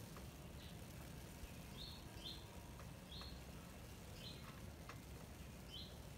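A small bird calling faintly with short, high chirps, about six of them, roughly one a second, over a steady low background rumble.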